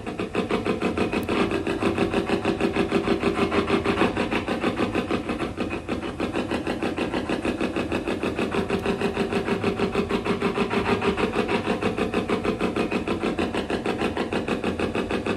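Spirit box sweeping through radio frequencies: a steady, rapid chopping of static, about five pulses a second.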